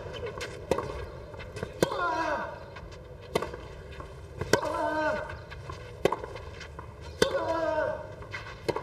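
Tennis rally on a clay court: the ball is struck back and forth, a sharp pop every second and a half or so. Every other shot comes with a loud grunt from one player, falling in pitch.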